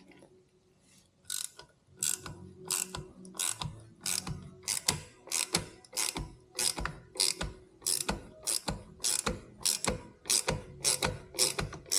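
Hand ratchet wrench clicking in short repeated strokes, about two a second, starting about a second in. A nut is being run down on a washer to compress the Harley clutch pressure-plate springs.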